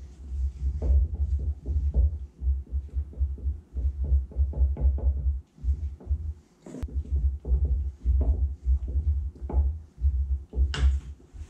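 Background music dominated by a deep, throbbing bass pulse. Faint clicks of a spatula against a stainless steel mixing bowl as whipped cream is folded in sit underneath.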